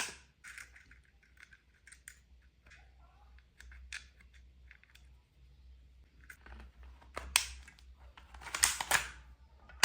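Plastic toy guns being handled: scattered small clicks and scrapes, with a sharp click about seven seconds in and a quick run of louder clicks near the end.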